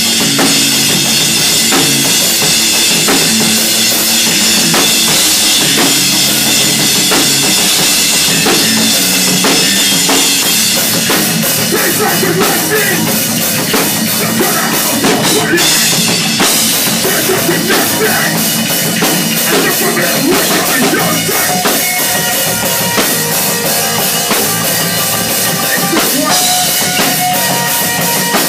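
Live hardcore band playing loud: bass guitar, electric guitar and a drum kit with bass drum and cymbals, the drums hitting in a fast, dense pattern.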